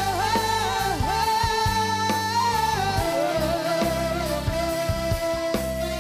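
Live Arabic pop ballad: a male singer holds long sung notes over a band and orchestra, the melody stepping down to a lower held note about halfway through.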